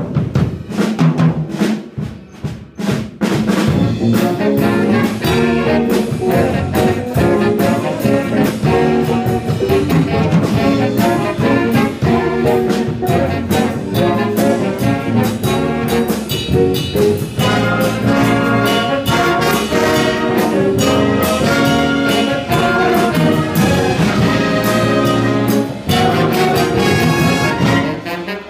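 Live jazz big band playing an up-tempo passage: saxophones, trombones, trumpets and sousaphone over drum kit. After a short break about three seconds in, the full band comes back in and plays on.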